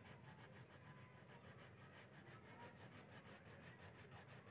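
Faint scratching of a crayon rubbed quickly back and forth on paper, colouring in, with many short strokes a second.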